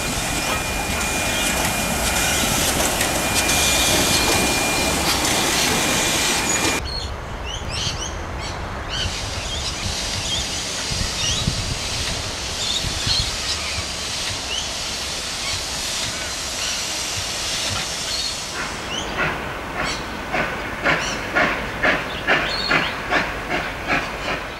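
Steam locomotive: a loud steady hiss of escaping steam with a thin steady tone in it, which cuts off abruptly about seven seconds in. Quieter running noise follows, and in the last five seconds the locomotive's exhaust beats at about two chuffs a second as it pulls away.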